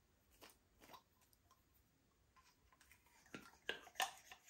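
Slime being worked by hand, giving sticky clicks and pops: two faint ones early, then a louder run of clicks and crackles about three seconds in.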